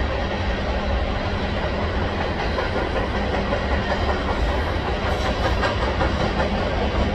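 Freight train of covered hopper cars rolling past: a steady rumble of steel wheels on the rails.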